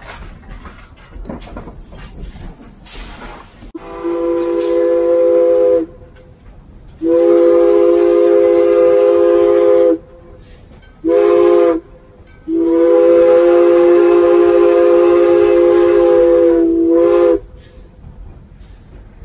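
Steam locomotive chime whistle blown from the cab, several notes sounding together as a chord: two long blasts, a short one, then a long one. This is the standard signal for a grade crossing.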